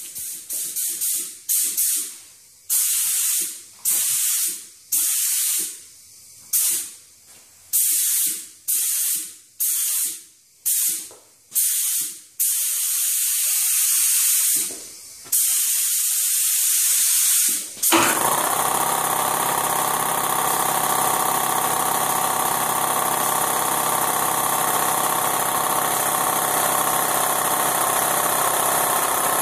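Air spray gun hissing as it sprays epoxy primer, first in about a dozen short trigger pulls, then in two longer passes. About 18 seconds in, a steady machine sound starts under the spray and keeps running, most likely the air compressor kicking on.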